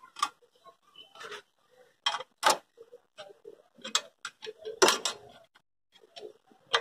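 Metal hand tools clicking and clinking irregularly against the kick-start shaft and spring of a Royal Enfield Standard 350 engine as a new kick-start return spring is levered onto its anchor. A louder metallic knock comes about five seconds in.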